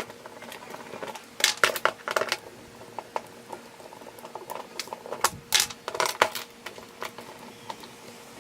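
Hand tools and a plastic door-handle trim piece being handled: a scatter of small hard clicks, clinks and knocks, bunched about a second and a half in and again about five and a half seconds in.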